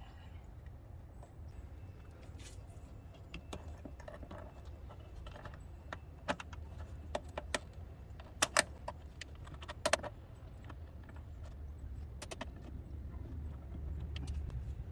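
Scattered light metallic clicks and clinks, like tools or small metal parts being handled, with a few sharper ones around the middle, over a low steady rumble.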